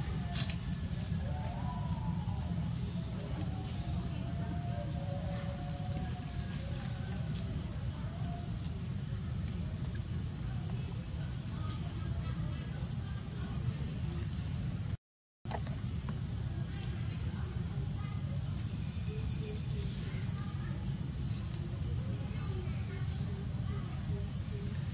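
Steady, high-pitched drone of a chorus of insects, over a low rumble. The sound cuts out for a moment about halfway through.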